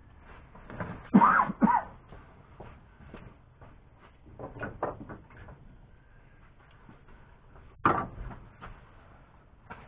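Scattered knocks and clunks of handling noise around a truck's open engine bay: two sharp ones a little over a second in, a few quieter ones around four and a half seconds, and another sharp knock near eight seconds.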